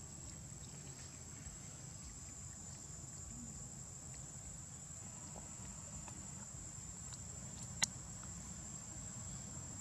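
Steady high-pitched insect buzz over a faint low rumble of outdoor background, broken by a single sharp click near the end.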